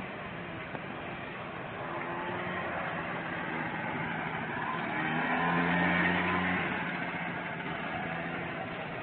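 Small engine of a child's ride-on mini quad running with a steady hum, getting louder as it passes close by and then fading as it moves away.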